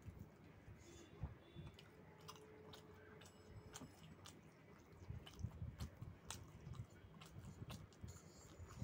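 A person chewing food with the mouth close to the microphone, quiet wet clicks and soft bites, growing busier about five seconds in.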